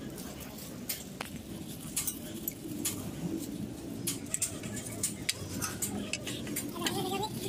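Scattered light metallic clicks and taps from hand work on a truck's front drum brake assembly, its brake shoes and springs being handled, over a low steady workshop background.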